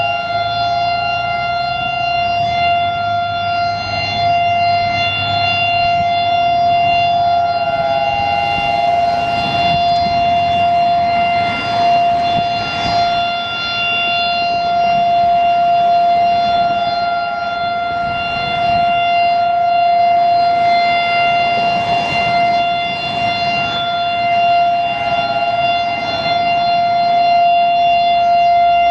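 Federal Signal STH-10 outdoor warning siren sounding a steady Alert tone: one held pitch whose loudness swells and fades gently, with a second, slightly higher tone coming and going.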